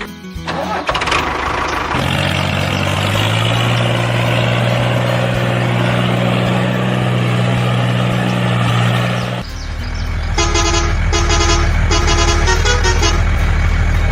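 A vehicle horn holds one long steady blast for about seven seconds. Then an engine runs with a low steady hum under a quick run of short electronic beeps.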